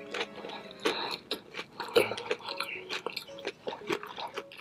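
Close-miked chewing of Hot Cheetos-crusted fried chicken: an irregular run of wet mouth clicks and crackles, the loudest about two seconds in.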